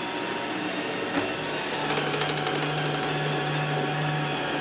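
iRobot Roomba 645 robot vacuum running on carpet: a steady whirring hum from its vacuum motor and brushes. A lower steady tone joins about a second and a half in and drops away shortly before the end.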